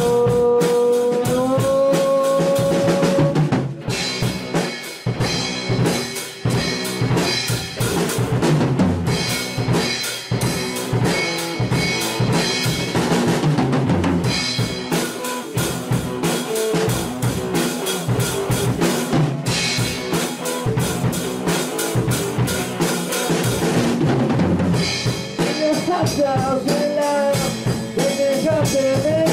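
Rock band playing live: electric guitar and drum kit. A guitar chord rings and slides up at the start, then the full drum kit comes in about three and a half seconds in with snare, bass drum and cymbals under the guitars, and a wavering melodic line rises over it near the end.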